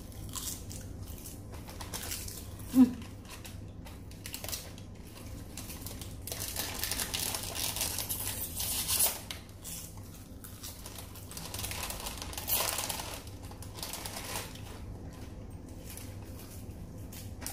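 Crinkling and crackling of seasoned seaweed snack packs and crisp roasted seaweed sheets being handled, in irregular bursts that are busiest in the middle and again near the end. A brief vocal sound about three seconds in, over a low steady hum.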